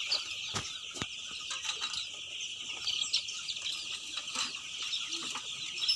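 A large flock of young broiler chicks peeping all at once, a dense high chatter of overlapping cheeps. There are two short knocks about half a second and a second in.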